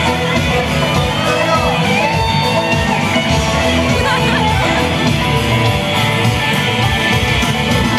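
Country-rock song with guitar, a stretch between sung lines, with a shouted voice over the music.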